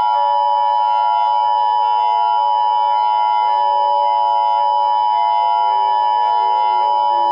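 Emergency Alert System attention signal: a loud, steady electronic two-tone alert near 1 kHz, held unbroken, with a fainter tone sliding slowly downward beneath it.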